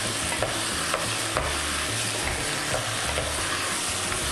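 Vegetables with tomato paste and spices sizzling in a pot as they are stirred, with a few light clicks of the utensil against the pot.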